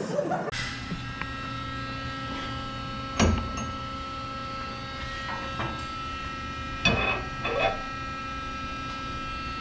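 Steady electrical hum, with three short metallic clanks about three, seven and seven and a half seconds in as a splined rear axle shaft is handled and slid into a Ford 9-inch rear end.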